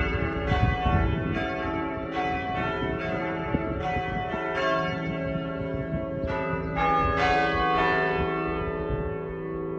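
A heavy ring of six church bells, tenor 18 cwt in E, being rung down: the strikes come irregularly and crowd together as the swing shortens. The last strikes come about eight seconds in, and the bells' ringing then dies away.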